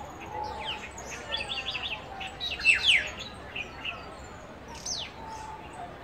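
Birds chirping: a string of short, high, downward-sweeping chirps, with a quick run of notes about a second in and the loudest calls near the middle.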